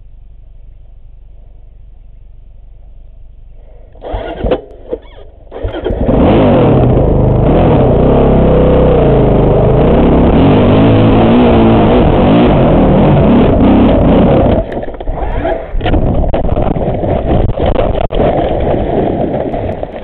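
Dirt bike engine starting: a few short bursts about four seconds in, then it catches about two seconds later and runs loud under throttle, revs rising and falling. Past the three-quarter mark it runs more unevenly, with the throttle opening and closing.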